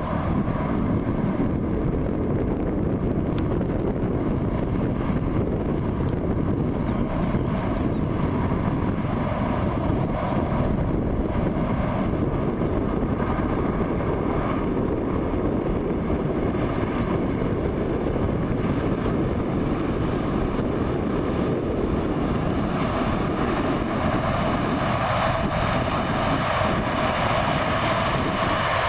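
A train passing close by: a steady, loud rolling noise of wheels on the rails that carries on without a break.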